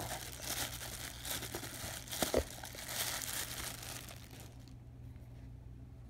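Clear plastic wrapping crinkling as it is pulled and crumpled off an eyepiece, with one brief knock a little past two seconds in; the crinkling stops about three-quarters of the way through.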